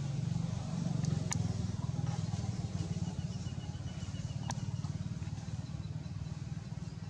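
A motor engine running steadily with a low hum, slowly growing fainter, with two sharp clicks, one a little over a second in and one about four and a half seconds in.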